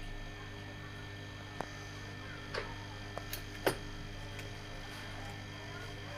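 A steady electrical hum with a handful of light clicks and taps, about five spread between one and four seconds in, as hands turn knit fabric and handle a small metal tool.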